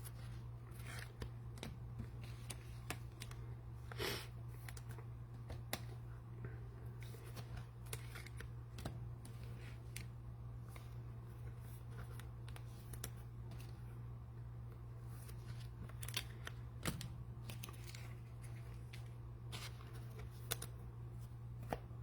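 Faint, scattered rustling and light clicks of trading cards and their pack wrappers being handled and sorted, over a steady low hum.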